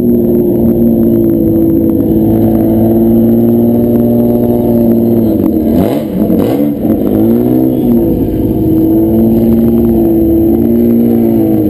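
A car engine running close by with a steady drone. About six seconds in, the revs drop sharply and climb back, then settle.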